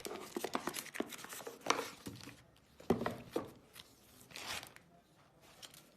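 Packaging and paper booklets being handled, rustling and crinkling in short scrapes and clicks. The sounds are dense for about two seconds, then come only now and then.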